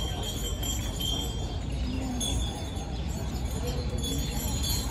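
Light metallic ringing, chime-like, with a thin high tone that rings for about a second at the start and sounds again briefly about two seconds in, over a steady low outdoor rumble.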